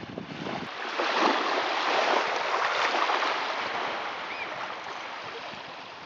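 Small sea waves lapping at the shoreline: a rush of water noise that swells about a second in and slowly fades over the next few seconds.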